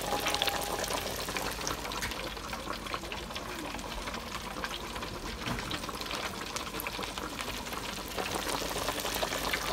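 Hot oil in a deep fryer sizzling and crackling steadily around battered catfish and tilapia fillets, with a dense patter of tiny pops.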